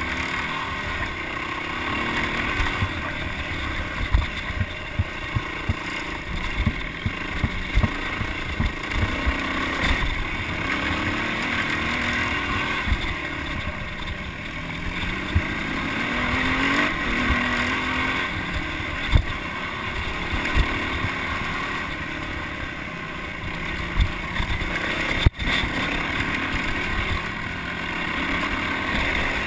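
Yamaha dirt bike's engine running as it rides a rough dirt trail, heard from a handlebar-mounted camera, with wind on the microphone and frequent low knocks from the bumps.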